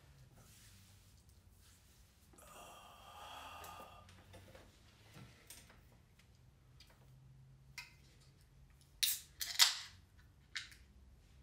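Aluminium beer can cracked open by its pull tab near the end: a sharp snap followed by a short hiss of escaping carbonation, then a smaller click about a second later.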